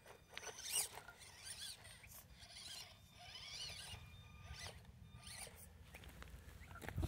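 Axial SCX24 micro crawler's small electric motor and gearbox giving a faint high whine that rises and falls with the throttle as it climbs over loose rock, with scattered clicks and crackle from the tyres and stones.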